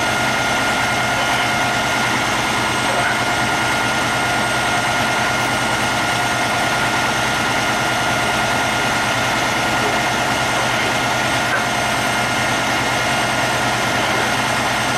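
Heavy diesel engine idling steadily, with a steady high whine riding over its low hum.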